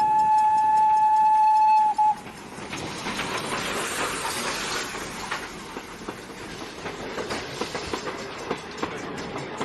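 Toy high-speed train's electronic sound effects: a steady horn tone for about two seconds, then a busy rattling clickety-clack running noise with many small clicks.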